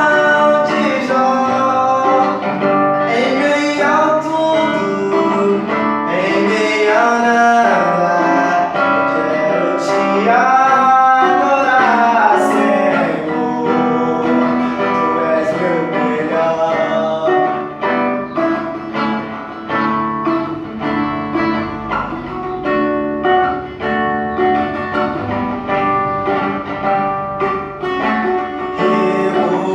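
A voice singing a Portuguese-language gospel song over acoustic guitar. About halfway through the voice gives way to the guitar, which plays on alone with a steady strummed pulse.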